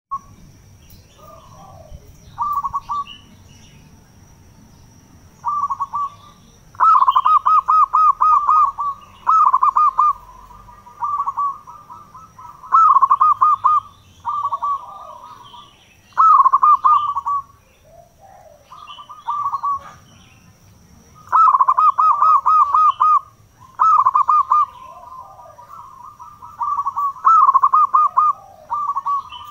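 Zebra dove (perkutut) singing: repeated phrases of quick, clipped cooing notes, each burst about a second long, with short pauses between.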